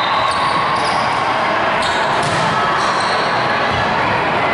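Steady, echoing din of a volleyball game in a large gymnasium, with a couple of faint sharp hits about two seconds in.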